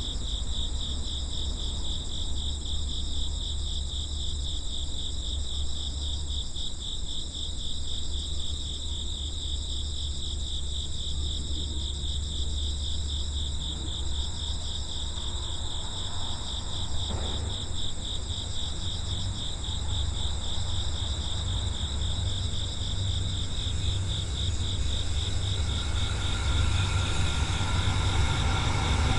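Insects chirping steadily in a fast, pulsing trill over a low rumble. Over the last few seconds a train's rumble grows louder as it approaches.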